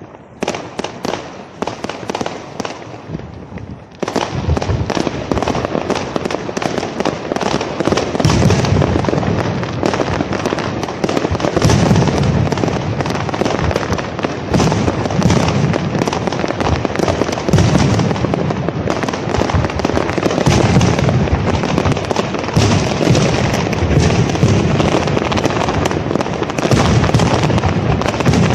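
Fireworks display: rapid crackling and popping of shells, becoming louder and denser about four seconds in. From about eight seconds on, deep booms of shells breaking repeat every second or two under the continuous crackle.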